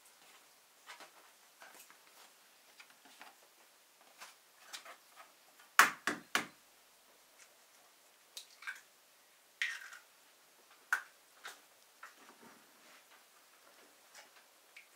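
Scattered light taps and clicks, with three sharp knocks in quick succession about six seconds in.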